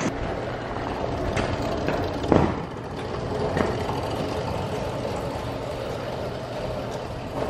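Suzuki LT185 quad's single-cylinder four-stroke engine running steadily at idle, with a short louder burst about two seconds in. Its carburettor is overflowing fuel, which the owner puts down to flooding, perhaps a stuck-open float.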